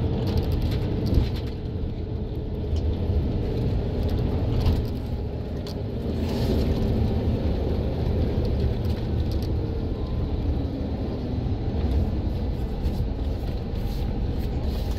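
Interior drone of a moving city bus: a steady low engine and road rumble, with a few light clicks and rattles scattered through it.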